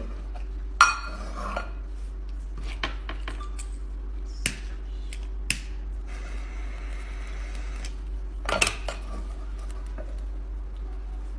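Metal clanks and clicks from handling a small cast-iron popcorn popper on its wire stand and setting a burner beneath it: a few sharp knocks, the loudest about a second in and again near the ninth second, with a soft hiss for a couple of seconds around the middle.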